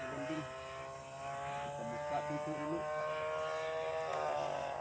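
Single-cylinder two-stroke 35cc DLE gas engine of a radio-controlled Corsair model plane droning in flight. Its pitch climbs slowly, then drops suddenly about four seconds in.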